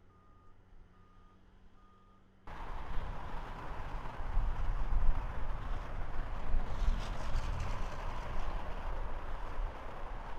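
Faint backup-alarm beeping, a single tone repeating about twice a second, then about two and a half seconds in a sudden switch to a loud, steady rumble of a passing train, heavy in the low end with some rattling midway.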